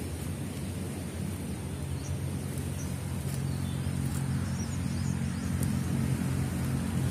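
Steady low engine hum that grows a little stronger about two seconds in.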